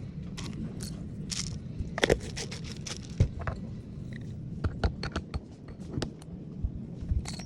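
Irregular clicks, taps and light scrapes of coffee-brewing gear being handled, with a few sharper knocks, over a steady low hum.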